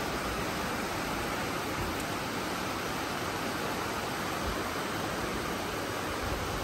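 Steady rainfall: an even, unbroken hiss with no distinct drops, thunder or other events.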